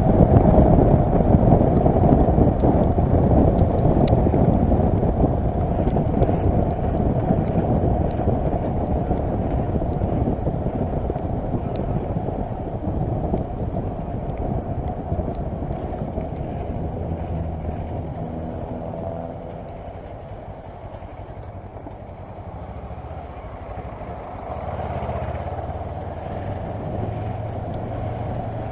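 Kawasaki Versys motorcycle riding on a wet road: wind and road noise with the engine underneath, loudest at the start and easing as the bike slows. In the second half, as it creeps through queued traffic, the engine's low steady hum stands out more.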